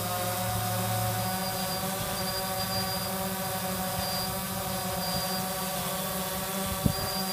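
DJI Phantom 2 quadcopter's four motors and propellers humming steadily as it hovers in a tethered post-repair test flight, holding level and flying well. A brief low bump comes near the end.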